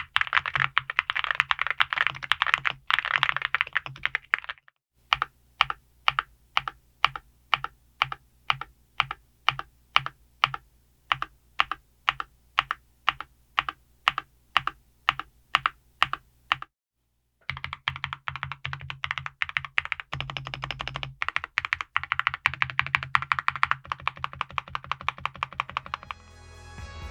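Mechanical keyboard with alumina ceramic keycaps on Celeste Blue linear switches being typed on: fast typing, then a long run of single keystrokes about two a second, then fast typing again after a short pause. Music comes in near the end.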